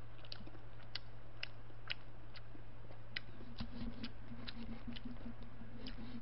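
Eating sounds: soft clicks of chewing and of chopsticks working instant black-bean noodles in a paper cup, about two a second, over a steady low hum.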